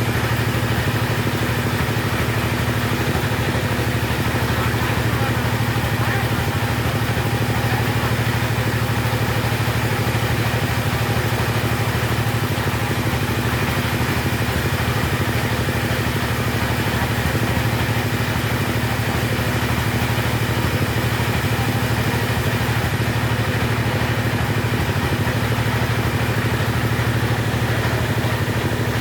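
Two-stroke chainsaw engine running steadily at one constant speed, with no revving up or down.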